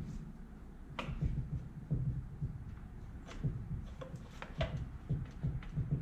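Scattered small clicks and knocks of hands and a tool working the old, hardened fuel line off a pressure washer's carburetor.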